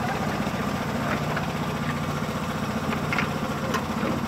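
Engine of a 7 1/4 inch gauge miniature railway locomotive running steadily with a fast, even pulsing beat, and a few light clicks over it.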